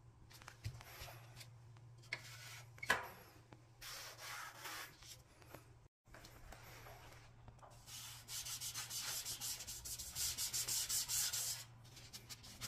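A gloved hand rubbing along the plastic louvers and grille slats of an air conditioner's indoor unit. Scattered scratchy strokes and a couple of sharp plastic knocks come first. In the second half comes a fast, even run of strokes, about four a second.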